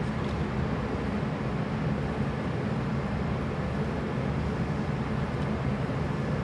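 Steady low rumble with a faint hum: the background noise of a large sports hall.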